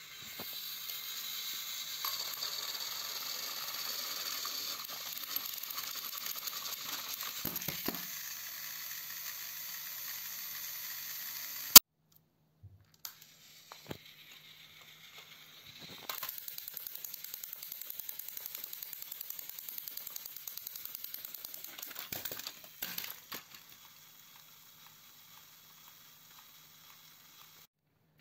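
Battery-powered toy train's small motor and gears whirring steadily as it runs along plastic track. The whirr stops with a sharp click about halfway through, then runs again for several seconds before it dies away.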